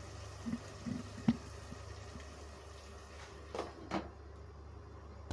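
Tomato and meat masala bubbling in a pot on the gas stove, with a few soft plops in the first second and a half. A glass lid is then set on the metal pot, clinking twice.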